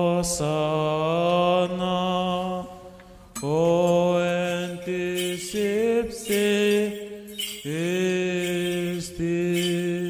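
Orthodox church chant: a male voice singing long, slowly gliding melismatic phrases, three breaths in all, with short pauses about three seconds in and again about seven and a half seconds in.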